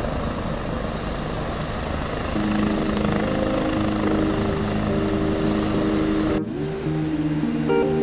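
Aircraft engines running with a steady rushing noise that cuts off abruptly about two-thirds of the way through. Background music comes in a couple of seconds in and carries on alone after the engine noise stops.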